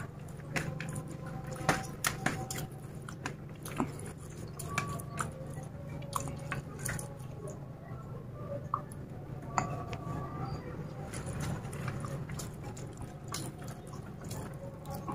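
Eating by hand: chewing and wet mouth sounds with many scattered sharp clicks, over a steady low hum.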